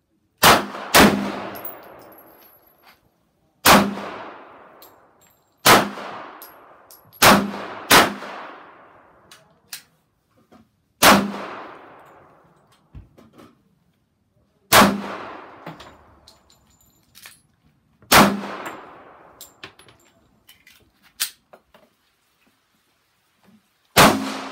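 Smith & Wesson SW1911 E-Series pistol firing .45 ACP, 230-grain Federal HST. Nine single shots at uneven intervals of half a second to three and a half seconds, each ringing out over about a second. One more shot comes near the end.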